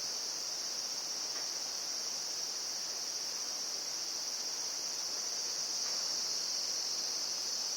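Insects shrilling in a continuous high-pitched chorus, steady and unbroken, with a few faint light ticks.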